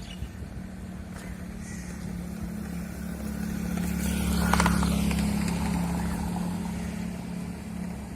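A motor vehicle passing by, its engine hum growing louder to a peak about halfway through and then fading away.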